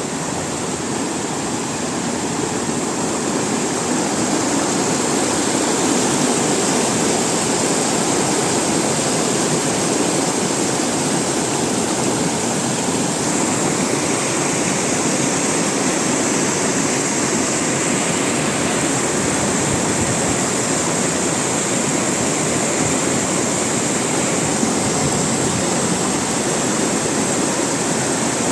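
River water rushing, a loud, steady, unbroken flow.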